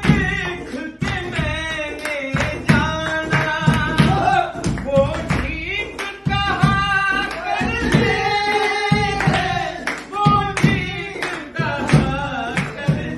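A group of men singing a song together, kept in time by a steady beat of hand claps and hands slapped on a suitcase used as a drum.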